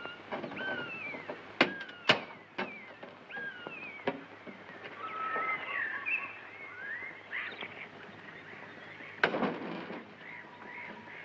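Several sharp clicks or knocks, the loudest about two seconds in and another near the end, over a night soundtrack of short chirping calls that glide down in pitch, with a low steady hum.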